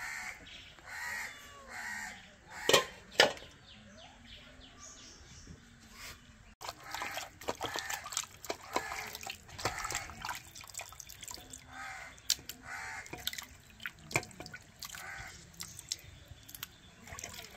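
Bird calls repeated in short runs, with two loud sharp knocks about three seconds in and scattered lighter clicks.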